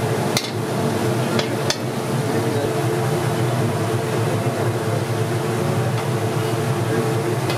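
Steady street-kitchen din with a constant low hum, broken by three sharp metal clinks of utensils on cookware in the first two seconds.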